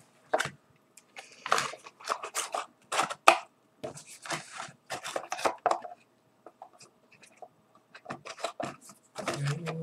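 A small white cardboard earbud box and its insert being handled on a wooden table: quick taps, scrapes and rustles of cardboard, in uneven clusters with a lull about two-thirds of the way through.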